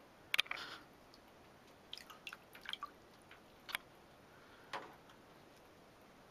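Small splashes and drips of water in a small room: one sharp splash about a third of a second in, a quick run of light splashes between two and three seconds, and two more single splashes near four and five seconds.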